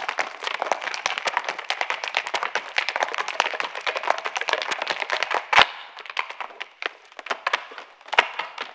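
Irish dance hard shoes striking the stage without music: a rapid, dense clatter of taps that ends in a loud stamp about five and a half seconds in, followed by a few scattered taps.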